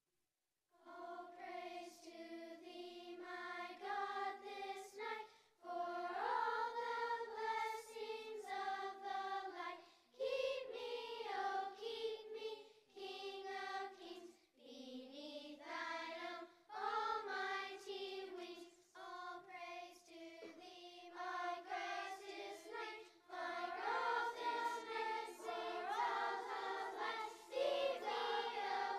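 Children's choir of third- to sixth-graders singing in unison phrases, starting about a second in after silence.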